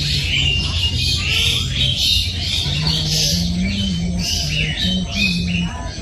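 Many small birds chirping and twittering at once, their calls overlapping densely throughout. A low steady hum lies underneath and shifts pitch in steps.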